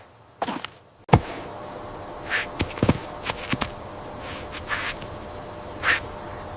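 A series of short clicks and brief rustling swishes, scattered irregularly over a steady low background hum that starts about a second in.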